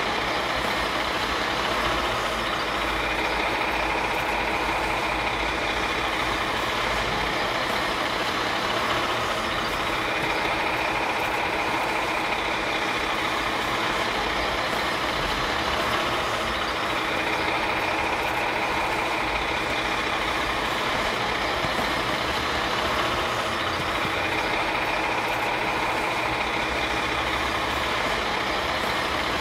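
Garbage truck engine running steadily, with a higher tone that swells and fades about every seven seconds.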